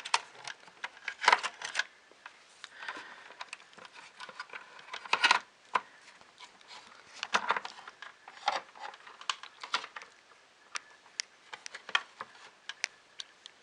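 Irregular clicks, taps and light rustling of small plastic parts and wiring being handled, with a few louder clusters of clicks about a second, five seconds and seven seconds in.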